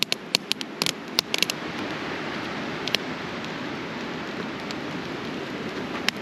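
Newly lit campfire of split kindling crackling: sharp pops cluster in the first second and a half, with single pops about three seconds in and near the end, over a steady low rushing noise.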